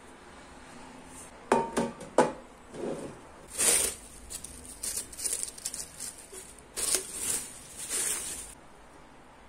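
Hammered copper pans knocking together a few times as they are handled, with a short ring, then the crinkling rustle of the clear plastic wrap around a pot in several bursts.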